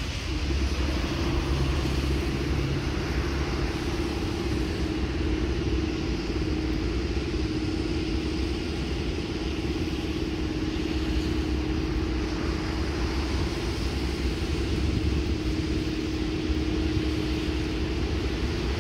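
A freight train's locomotive running while the train stands: a steady hum with a low rumble underneath.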